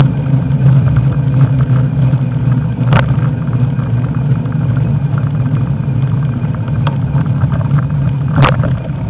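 Steady low rumble of a motor vehicle, with sharp knocks about three seconds in and again near the end.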